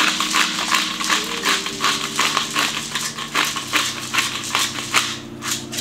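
Hand-twisted pepper mill grinding peppercorns: a fast run of gritty crunching clicks, about five a second.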